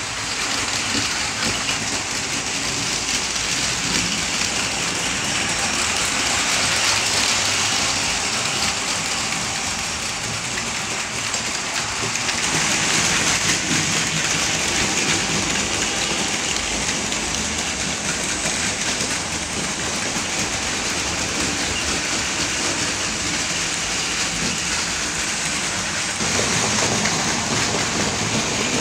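Several battery-powered Plarail Advance toy shinkansen trains running on plastic track: small motors whirring and wheels rattling over the rail joints, heard as a steady, dense clatter. The sound shifts in balance about twelve seconds in and again near the end.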